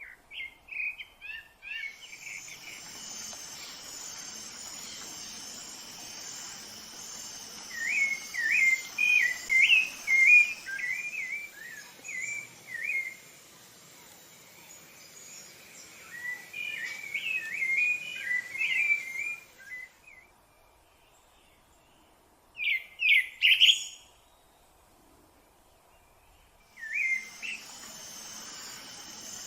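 Rufous-bellied thrush singing in bursts of warbled, fluting phrases separated by pauses. Behind it is a steady high insect buzz that drops out about two-thirds of the way through and returns near the end.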